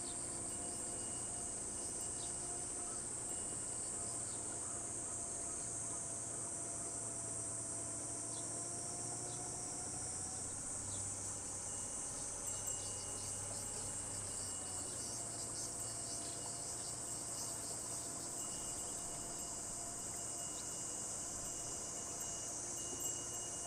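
Steady, high-pitched chorus of cicadas in the trees. Underneath it runs the faint low hum of the boat's small motor, shifting slightly in pitch midway, with a couple of small knocks.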